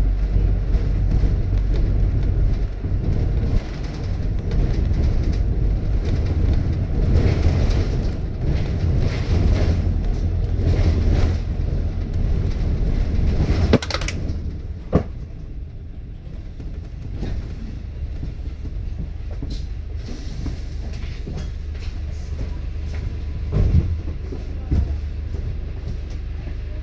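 Inside a London double-decker bus on the move: a steady low rumble of engine and tyres with body rattles. About 14 and 15 seconds in there are two sharp knocks, after which the running is quieter.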